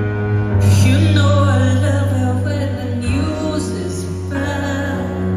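Live rock band playing: sustained keyboard chords over a steady bass drone, with a woman singing a line from about half a second in until about three seconds in, after which the held chords carry on.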